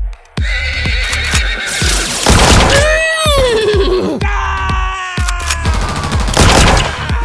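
Electronic dance music with a steady beat; about three seconds in, a pitched, whinny-like call slides downward over about a second.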